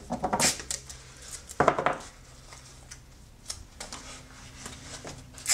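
Handling noises of cardboard, aluminium foil and masking tape being folded and pressed by hand: several short scrapes and crinkles with quiet gaps between, the loudest two about half a second and a second and a half in.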